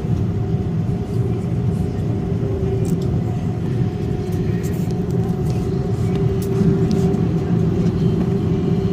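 Steady cabin noise inside an Airbus A330-300 airliner: the engines and airflow make a constant rumble with a steady hum over it.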